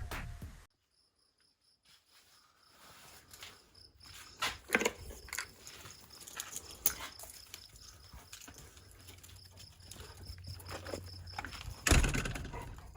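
Crickets chirping in a steady, evenly pulsed high trill, with scattered clicks, rustles and steps and one louder knock about twelve seconds in. Music cuts off in the first second.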